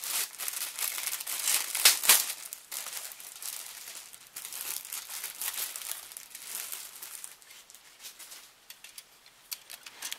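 Clear plastic parts bag crinkling and rustling as it is opened and handled, with dense crackling that is loudest about two seconds in and thins out over the last few seconds.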